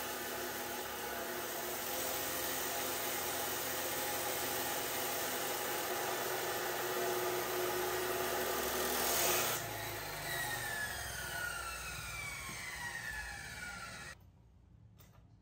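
Laxton LX249 14-inch abrasive cut-off saw grinding through a steel pipe with a steady hiss and whine. About nine and a half seconds in the cut finishes, and the motor and blade coast down with a falling whine before the sound cuts off suddenly near the end.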